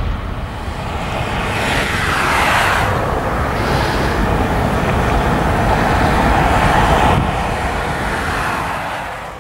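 Boeing 737-800 jet engines at takeoff thrust: a loud, steady roar as the airliner climbs away, with a falling whoosh about two seconds in. The sound fades out at the very end.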